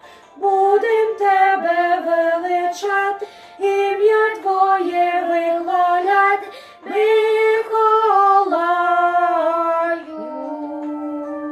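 A woman and a boy singing a song together: phrases of short sung notes with brief breaks between them, ending on one long held note.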